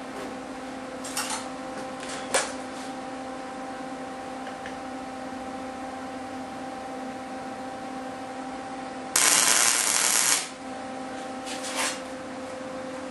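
A couple of sharp metal clicks as steel rod parts are clamped. About nine seconds in comes a tack weld: a welding arc crackling loudly for a little over a second, then cutting off.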